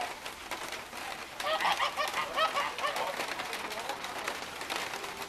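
A group of white domestic waterfowl calling: a dense burst of many short, quick calls from about a second and a half in until about three seconds, then only a few scattered calls.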